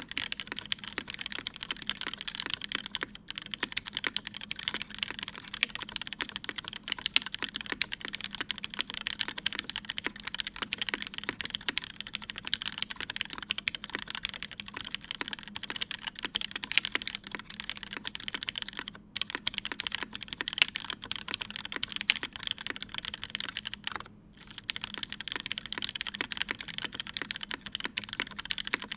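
Continuous typing on a TGR910ce mechanical keyboard with lubed and filmed Cherry MX Hyperglide black linear switches on a brass plate, under GMK keycaps: a steady stream of keystroke clacks. It breaks briefly about 3 seconds, 19 seconds and 24 seconds in.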